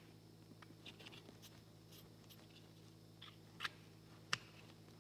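Near silence: a faint low hum with light clicks and taps of hands handling a Kydex knife sheath, two slightly louder clicks in the second half.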